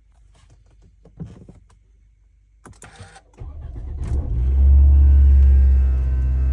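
Toyota Camry engine cranked and started from cold about halfway in, after a few faint clicks, then running loudly at a fast cold idle that eases slightly near the end. This is the loud noise the engine makes only when cold.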